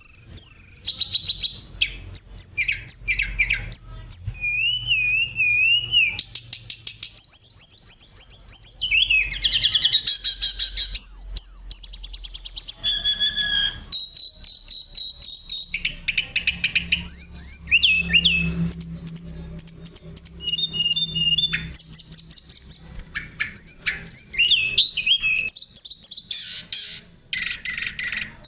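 Oriental magpie-robin (kacer) singing a long, varied song. Fast runs of repeated high notes alternate with wavering whistles and quick rising calls, phrase after phrase with short breaks.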